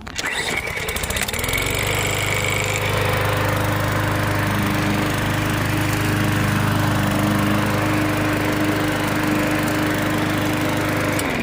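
Small gasoline lawnmower engine starting up, rising to speed within about a second and a half, then running steadily until it stops near the end. It is running again after months in storage, once the fuel was shaken through and it was primed.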